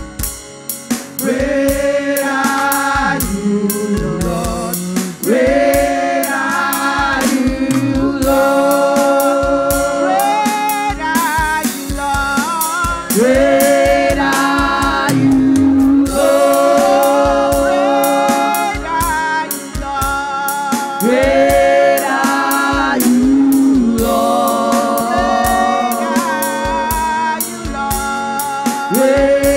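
Women's gospel choir singing in harmony into microphones, backed by a steady drum beat.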